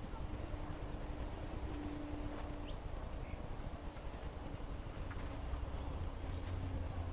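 Outdoor nature ambience: a bird repeats a short, high call every second or two, with a few other brief chirps, over a low steady rumble.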